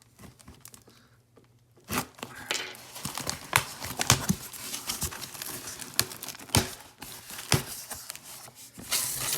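Cardboard box being torn open and its packing handled: tearing and crinkling with many sharp clicks and knocks, starting about two seconds in.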